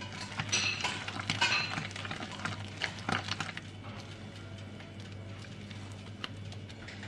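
Silicone spatula stirring and folding thick cake batter in a glass bowl: wet scraping with small taps of the spatula against the glass, busiest in the first three seconds or so, then quieter strokes.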